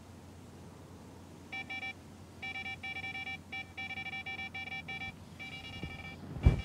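Electronic carp fishing bite alarm beeping in rapid runs of tones, with short pauses between the runs, the sign of a fish taking line. A rustle of movement comes near the end.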